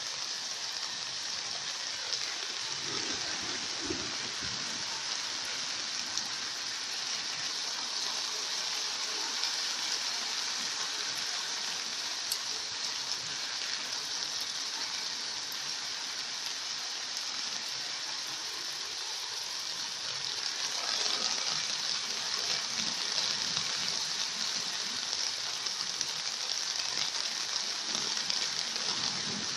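Heavy rain pouring down steadily as a dense hiss, growing a little louder about two-thirds of the way through.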